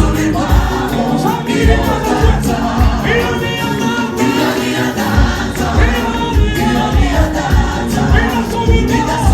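Gospel choir singing with a backing band over a steady drum beat.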